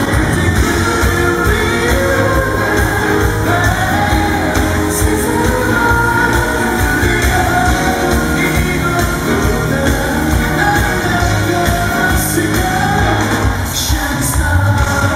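Male vocalist singing a pop-rock song live with a full band over a steady drum beat.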